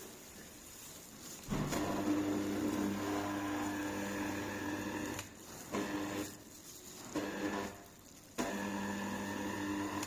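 Slow juicer's electric motor switched on and off, running with a steady low hum. It starts sharply about a second and a half in for a few seconds, gives two short runs, then runs again to the end.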